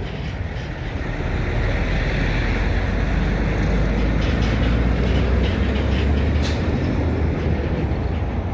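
Steady rumble of passing road traffic, swelling a little about two seconds in.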